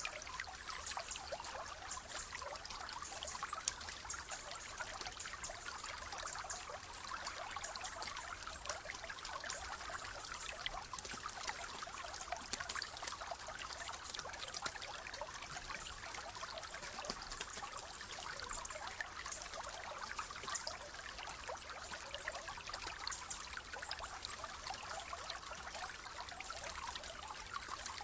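A stream trickling and splashing steadily over stones, with rain falling.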